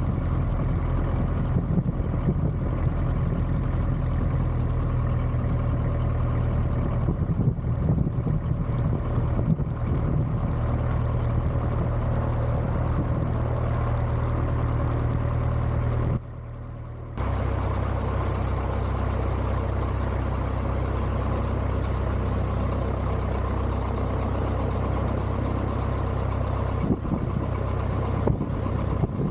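Piper J3 Cub's light aircraft engine running steadily at low power while the plane taxis. The sound drops away for about a second some 16 seconds in, then returns with more hiss on top.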